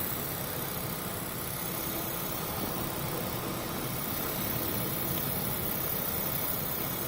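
Steady rumble of a ship's engine, mixed with an even rushing noise of wind and sea.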